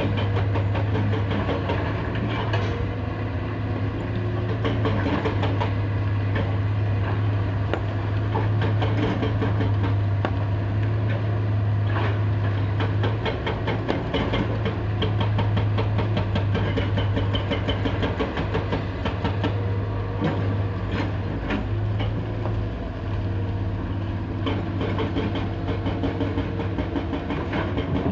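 Heavy diesel engine of a large excavator running steadily with a deep hum, with scattered knocks and clatter from the machine at work loading stone.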